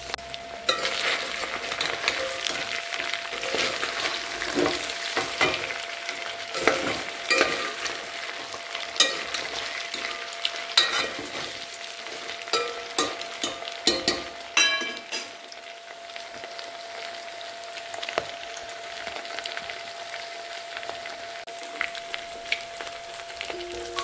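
Chopped buffalo meat frying in its own released fat in a pot, sizzling steadily: its water has cooked off and the oil has separated. For about the first fifteen seconds a utensil scrapes and clacks against the pot as the meat is stirred, then the sizzling goes on alone.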